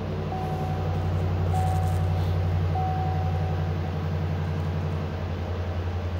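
A Chevrolet Silverado 2500's 6.0-litre gas V8 idling steadily just after start-up, heard from inside the cab. A dashboard warning chime sounds three times, about a second apart, in the first few seconds.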